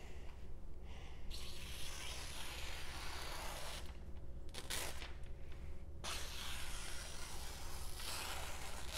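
Freshly sharpened Moritaka Aogami Super gyuto knife slicing through a hanging sheet of magazine paper: two long hissing slices, the first starting about a second in and the second about six seconds in. This is a paper-cutting test of the edge left by a 5000-grit Shapton Kuromaku whetstone, and the cut is a clean one.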